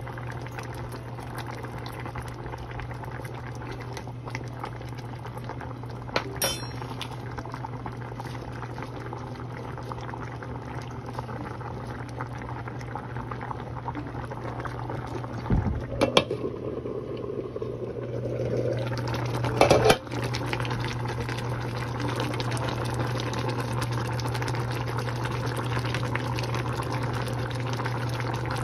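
Sinigang broth with prawns and vegetables bubbling at a boil in a frying pan, over a steady low hum. A few knocks come in the middle, as the greens go in. The bubbling dies down for a couple of seconds after that, then comes back stronger.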